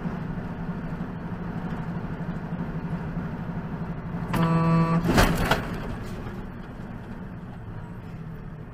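Truck engine and road drone heard from inside the cab, a horn blast of nearly a second about four and a half seconds in, then a quick run of loud bangs from a collision. The engine drone goes on after the impact.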